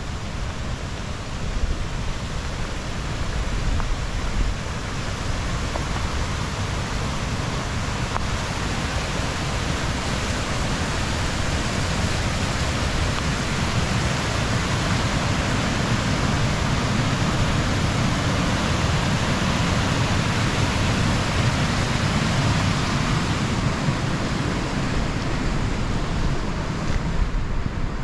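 A river rushing over rocks in a steady roar of water, swelling louder through the middle and easing off near the end.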